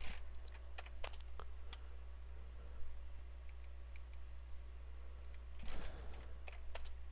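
Scattered clicks of a computer keyboard and mouse as number values are typed into a program, a few at a time with gaps between, over a low steady hum.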